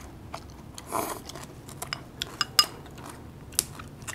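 Eating at the table: irregular light clicks and taps of utensils against bowls and dishes, with soft chewing between them.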